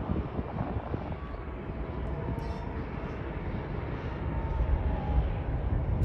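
Steady jet engine noise of airliners running at idle on an airport apron: a low rumble with a faint steady whine above it, swelling slightly near the end.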